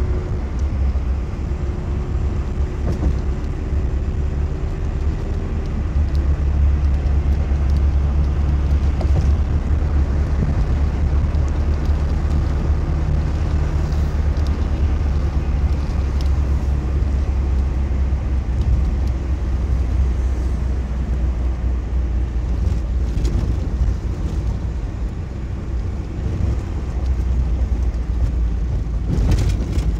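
Steady road and engine noise inside a moving car's cabin: a low rumble of engine, tyres and wind, a little louder from about six seconds in, with a few light knocks near the end.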